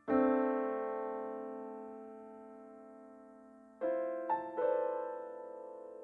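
Background piano music: a chord struck at the start and left to fade for nearly four seconds, then a few more notes about four seconds in.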